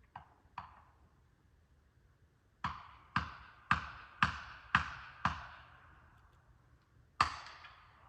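Felling wedges being hammered into a tree's cut: two light taps, then six sharp strikes about half a second apart, and one more near the end, each ringing briefly.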